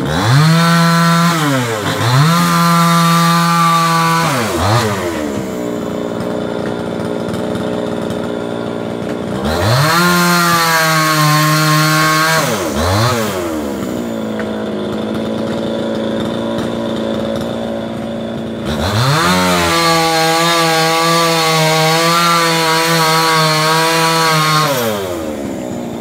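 Two-stroke chainsaw cutting a eucalyptus trunk, revving up and holding at high speed, then dropping back to a steady idle between cuts. This happens three times, the last spell of full revs the longest.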